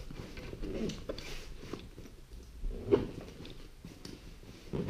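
Stiff fabric of a Bison Softpak soft cooler rustling and crinkling as its top is pressed and rolled down by hand, with a sharp click about three seconds in.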